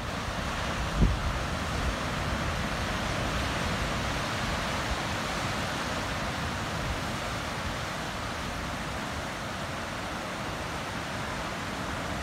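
Ocean surf breaking and washing over the rocks below, a steady rushing noise, with wind buffeting the microphone in low rumbles, strongest about a second in.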